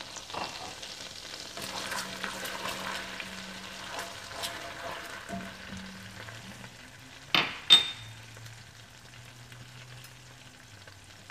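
Fennel seeds sizzling and crackling in melted butter in a pan as a slotted spoon stirs them, the sizzle easing off in the second half. A little over seven seconds in come two sharp clinks of the utensil against the pan.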